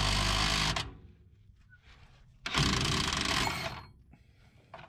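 Handheld power tool running in two bursts of about a second each, some two seconds apart, working bolts under the truck.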